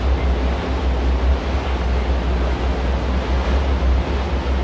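Steady ride noise aboard a moving tour boat: a heavy, uneven low rumble under a continuous rushing wash of water and wind.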